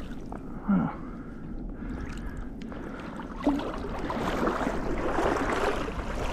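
Water sloshing and swishing around the legs of someone wading through shallow marsh water, getting steadily louder in the second half, with a short low thump near the start and another about three and a half seconds in.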